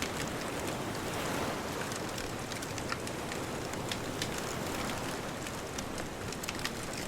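Wood bonfire crackling, with frequent sharp pops scattered throughout, over a steady rush of distant ocean surf that swells slightly about a second in.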